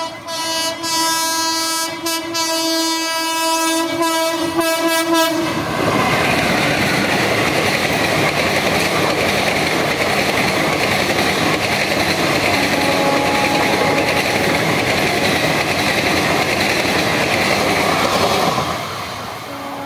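A suburban electric multiple unit train blows a long, steady horn for about five seconds. It then runs past with loud, continuous wheel-on-rail noise, which fades just before the end.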